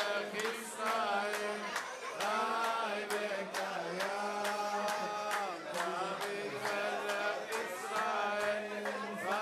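Congregation of mostly male voices singing a festive Hebrew song together, holding long notes, with sharp claps keeping a steady beat about two to three times a second.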